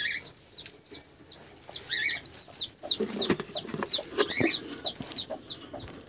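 Aviary birds chirping: a fast run of short, high, falling chirps, about three or four a second, that grows busier from about two seconds in, with a few clicks mixed in.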